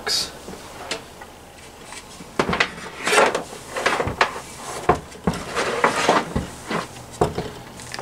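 Irregular clicks, knocks and scraping of someone handling the back of a small refrigerator and taking hold of its power cord, with the loudest scrape about three seconds in.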